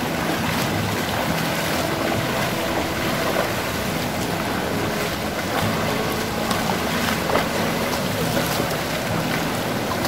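Shallow rocky stream rushing steadily, with the splashing of feet wading through it.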